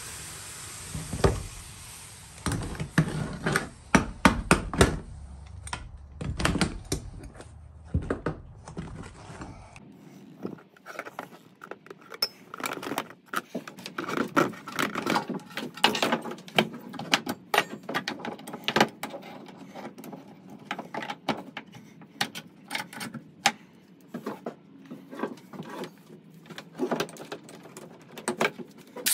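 Irregular clinks, taps and knocks of cast metal pieces and tools being handled on a workbench, heavier in the first ten seconds, then lighter, quicker taps and clatter.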